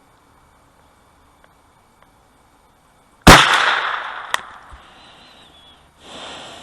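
A single rifle shot about three seconds in, ringing out in a long echo that fades over the next couple of seconds. A sharp click follows about a second later, and a softer rush of sound swells up near the end.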